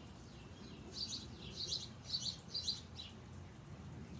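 Small songbird singing a run of quick, high chirps, about seven in two seconds, starting about a second in.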